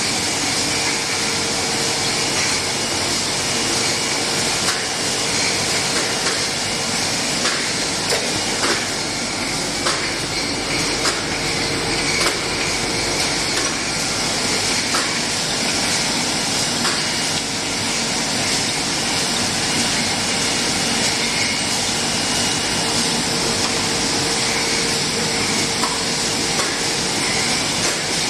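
Packaging-line machinery running steadily with a constant hiss and a held tone, broken by scattered sharp clicks at irregular intervals.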